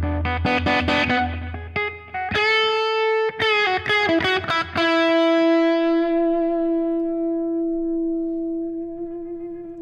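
Electric guitar played through a crunchy overdriven amp preset on a Fractal Audio modeller. A few picked chords and notes, then about five seconds in a single note is held, ringing out and slowly fading.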